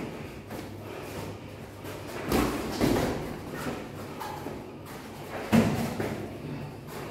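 Dull thuds of boxing gloves landing during sparring, mixed with sneakers shuffling on rubber floor mats. A pair of thuds comes about two and a half seconds in, and the loudest single thud about five and a half seconds in.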